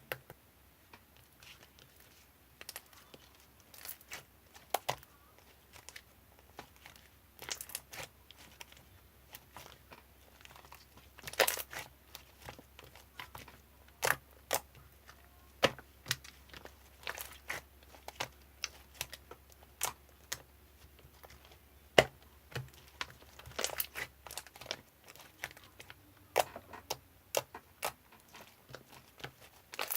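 Irregular sharp clicks and crinkling handling noises, a few at a time with gaps between, over a faint low hum that stops about 25 seconds in.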